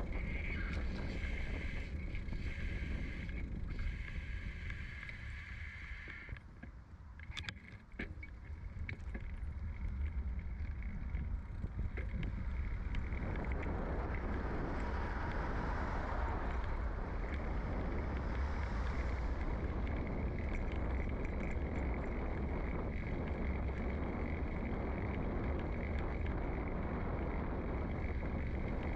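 Ride noise from a bicycle-mounted microphone: tyres rolling on asphalt with a steady low wind rumble. It drops away for a few seconds partway through, with a few sharp clicks, then settles into a steadier, fuller road hiss.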